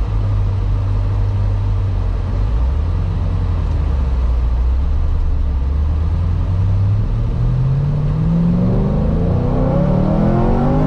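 Supercharged 2010 Chevrolet Camaro SS V8 running at low, steady revs, then from about seven seconds in rising steadily in pitch as the car accelerates hard in second gear.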